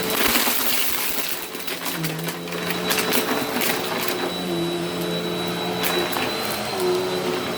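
Vacuum cleaner running, its motor hum wavering slightly in pitch, with a steady high whine, while crunchy debris rattles and crackles up the nozzle in scattered clicks.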